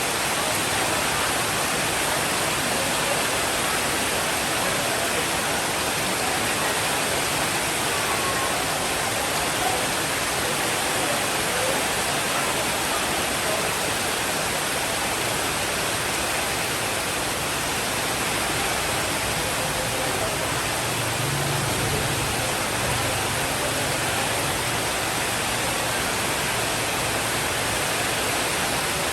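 Steady rainfall, an even dense hiss, with a faint low rumble of distant thunder about two-thirds of the way through.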